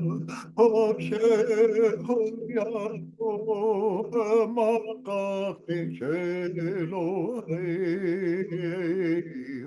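A man singing a chant-like song, his voice wavering with a strong vibrato over a steady, low held tone.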